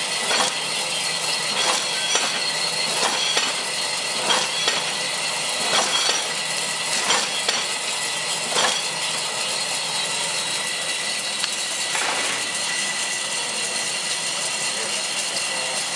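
Paper-cutting and stacking machine running with a steady whir from its round-belt conveyor. Sharp clicks come about once a second over the first eight or nine seconds as it is triggered to cut and feed paper sheets; after that only the steady running remains.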